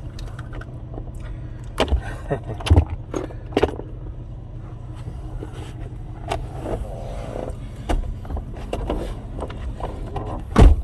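Steady low rumble of a car, with a few sharp knocks and thumps; the loudest knock comes near the end.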